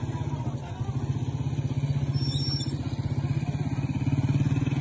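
A motorcycle engine running steadily with an even, rapid low pulse.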